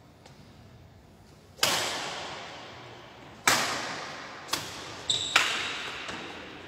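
Badminton rackets striking a shuttlecock in a rally: five sharp cracks, the first two loudest and nearly two seconds apart, then three quicker ones, each echoing in a large hall. A brief high squeak comes just after the third hit.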